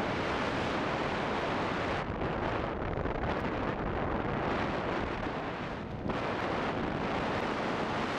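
Steady wind rushing over the microphone during a tandem parachute descent under an open canopy.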